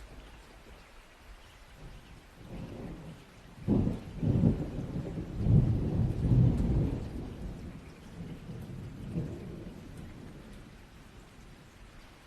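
A thunderclap over steady rain: a low rumble builds, cracks sharply about four seconds in, rolls loudest for the next few seconds and fades away, leaving the rain hiss.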